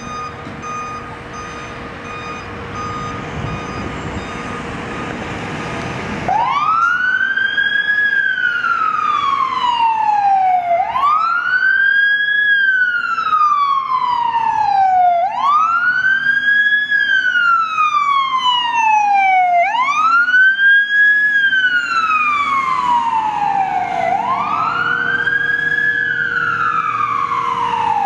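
Fire truck siren wailing, each cycle a quick rise and a slower fall, repeating about every four and a half seconds from about six seconds in. Before it, engine and traffic noise builds up as the apparatus pulls out.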